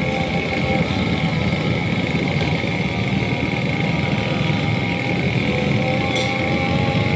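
Engine running steadily, with a short sharp click about six seconds in.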